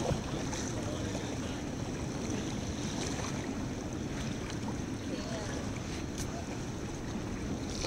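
Steady rush of high, fast river water around an inflatable raft, with low rumbling wind buffeting on the life-jacket-mounted microphone.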